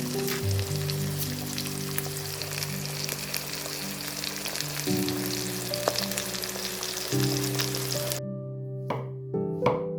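Food sizzling and frying in hot oil in a skillet, with background music. The sizzle cuts off suddenly about eight seconds in, and three sharp knocks of a knife chopping on a board follow.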